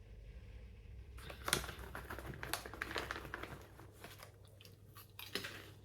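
A person crunching and chewing popcorn, with close crisp crackles starting about a second in and thinning out near the end.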